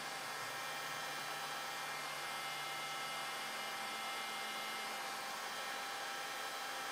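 Steady hiss with a faint electrical hum: room tone. A low hum fades about halfway through.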